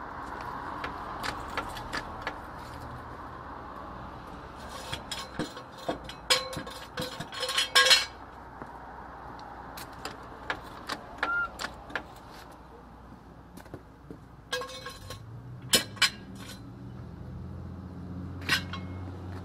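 Metal tools and parts clinking and clanking in irregular clusters of sharp metallic knocks, over a steady hiss; a low hum comes in near the end.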